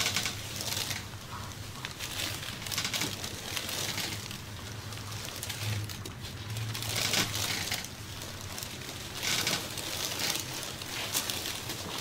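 Hands rubbing and sliding over skin and cloth during a massage, in irregular swishing strokes, over a steady low hum.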